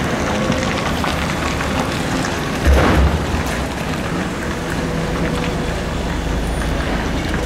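Volvo EC220E excavator's diesel engine and hydraulics running steadily as the machine swings and works, with one heavy thud about three seconds in.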